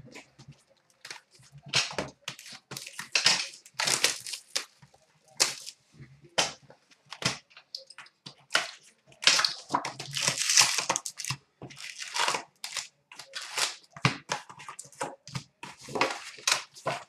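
Plastic shrink wrap being slit and torn off a hockey card hobby box, then the box opened and its foil packs handled: quick, irregular crinkles, rips and rustles.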